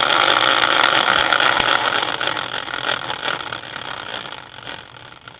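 Prize wheel spinning, a dense rapid clicking that slows and fades over a few seconds as the wheel winds down.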